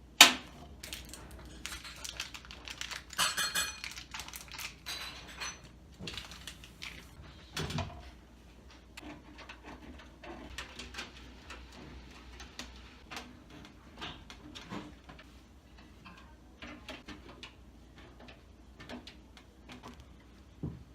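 Irregular clicks, taps and light metallic clatter of computer parts being handled during assembly, with a sharp knock right at the start and a brief ringing clink about three seconds in.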